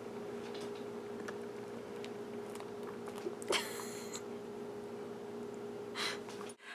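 Quiet room tone with a steady low electrical hum and scattered faint ticks. There is one brief high squeak a little past halfway and a short breathy hiss near the end.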